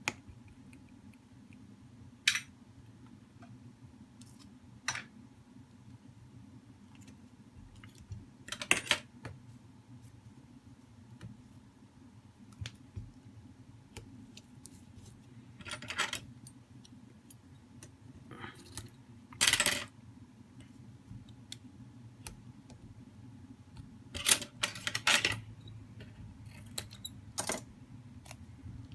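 Small handling sounds from an opened smartphone being worked on: scattered sharp clicks and taps, and several short rustling bursts as adhesive tape strips are peeled and pressed onto the battery. A steady low hum runs underneath.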